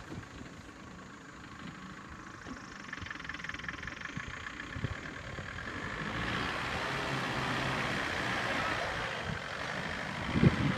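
Force Gurkha's diesel engine running at low revs while the SUV crawls up and over a rough hillside, getting louder about six seconds in. A few sharp knocks come near the end.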